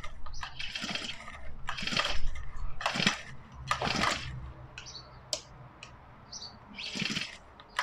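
Honda four-stroke line trimmer being started by hand: a string of short rasping and squeaking strokes, fainter in the second half, before the engine fires right at the end.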